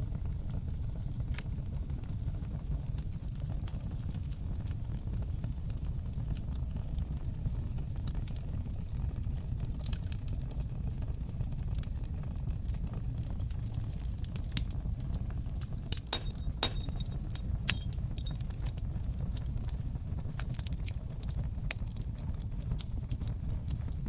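Fire burning in a fireplace: a steady low rumble of flames with frequent sharp crackles and pops, and one louder pop about three-quarters of the way through.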